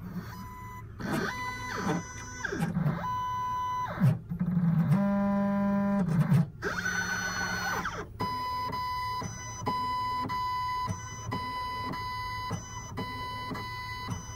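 Computerized key-cutting machine's stepper motors whining as it traces the cuts of an original high-security laser-cut key. For the first half the whine rises and falls in pitch as the carriage moves, then it settles into a steady repeated whine broken by short stops and clicks.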